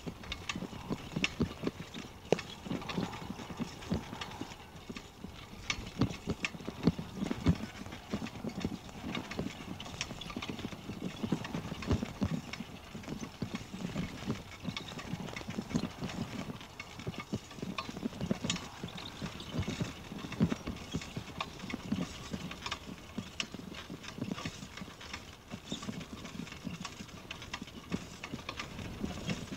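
Bicycle being ridden on a concrete road: an irregular stream of rattles, clicks and knocks over a low rumble.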